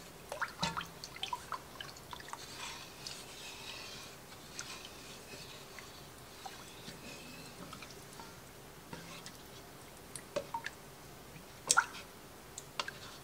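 A metal spoon stirring a thick cream sauce in an enamelled pot: soft wet sloshing with scattered light clicks and scrapes of the spoon against the pot, and a couple of sharper clicks near the end.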